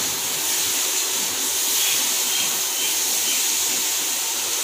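Water with tea leaves and sugar heating in a stainless-steel saucepan on an electric cooktop, giving a steady hiss as it steams toward the boil.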